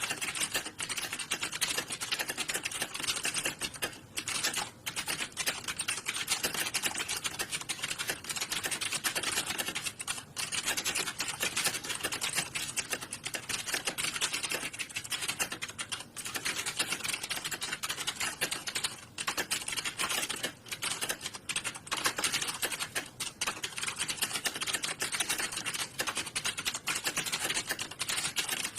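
Many computer keyboards typed on at once in a typing-test hall: a dense, continuous clatter of keystrokes with a few brief lulls.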